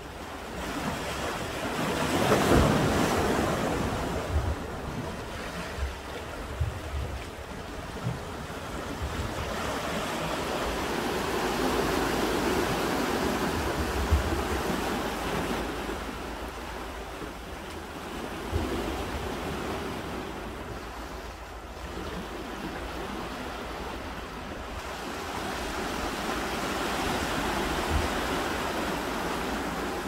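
Sea waves washing against a rocky shore, swelling and easing in slow surges, with wind buffeting the microphone in low thumps.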